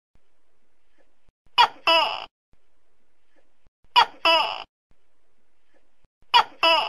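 Tokay gecko giving its two-part "to-kay" call three times, about every two and a half seconds. Each call is a short sharp note followed by a longer note that falls in pitch.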